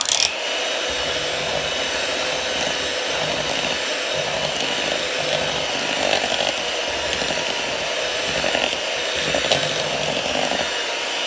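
Electric mixer running steadily as it beats zucchini bread batter (oil, eggs, sugar and flour) in a bowl, a loud even motor whine with a few light knocks of the beaters.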